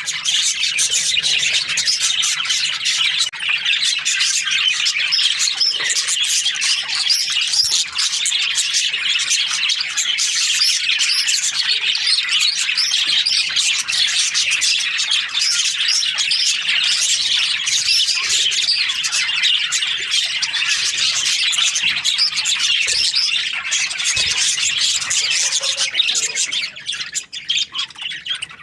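A flock of budgerigars chattering and chirping continuously, many overlapping warbles and chirps, thinning out near the end.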